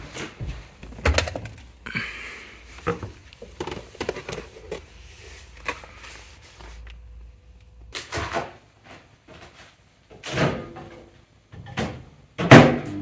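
A series of irregular knocks and bumps, the loudest one near the end.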